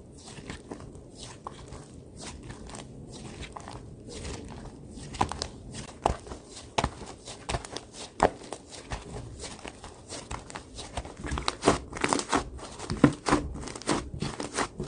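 Slime being squeezed and pressed by hand, giving irregular sticky clicks, pops and crackles that grow denser and louder partway through.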